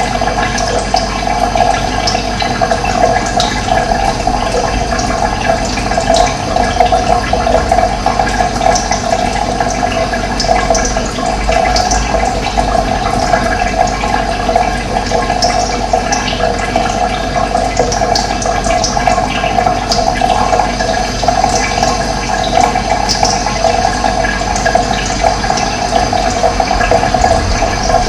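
Steady rushing of running water, with brief high bird chirps now and then.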